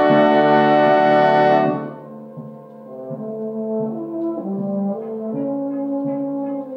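Brass band playing: a loud, full sustained chord cuts off about two seconds in, followed by a quieter passage of held notes moving step by step in several parts.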